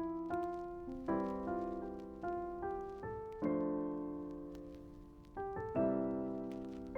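Solo piano music: chords struck one after another, each left to ring and fade, with one longer held chord in the middle.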